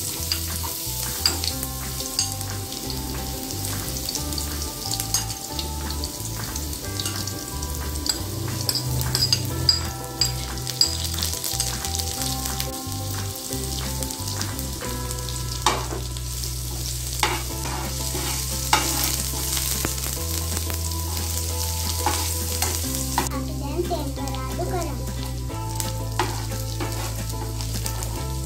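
Food sizzling as it fries in hot oil in a pan, stirred with a utensil that clicks and scrapes against the pan now and then.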